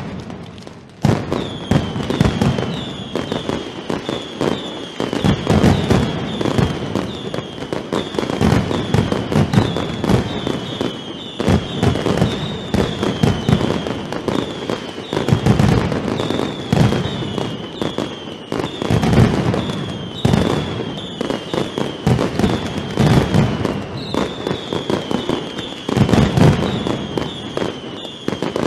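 Mascletà firecrackers going off in a dense, continuous barrage of bangs, with ground charges and aerial bangers mixed. From about a second in, a string of high falling whistles runs over the detonations.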